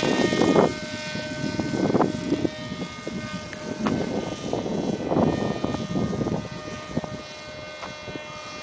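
Zagi flying-wing RC model plane's motor and propeller whining at a steady pitch, growing fainter as the plane climbs away, with recurring bursts of low rumbling noise.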